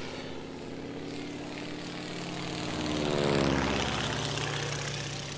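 Propeller-plane fly-by sound effect: a small prop engine drones, swelling to its loudest a little past halfway and then fading as it passes.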